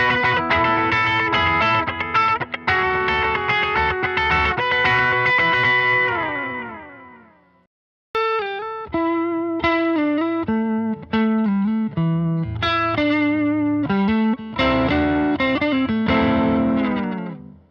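Reverend Eastsider S electric guitar playing dense ringing chords whose pitch slides down together as they fade out. After a brief pause come picked single notes with string bends, then strummed chords that stop just before the end.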